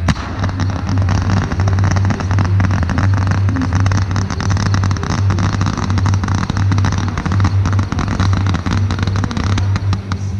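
Fireworks barrage: a dense run of rapid bangs and crackling, firing continuously, over the pulsing bass of the display's music.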